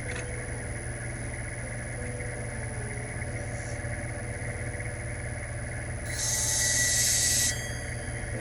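Clipper blade sharpening machine's motor running with a steady hum. About six seconds in, a louder, hiss-like, high-pitched noise joins it for about a second and a half, then stops.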